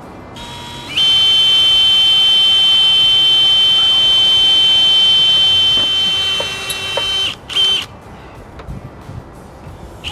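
Cordless drill running at full speed, a loud steady high-pitched whine, as it pre-drills pilot holes through asphalt roof shingles. It runs for about five seconds, wavers and stops, gives one short burst, and starts again right at the end.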